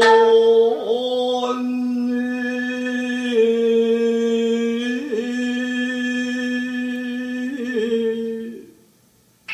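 Nagauta singing, the sung accompaniment of Japanese classical dance: one voice holds long drawn-out notes, sliding to a new pitch a few times, and fades out about a second before the end.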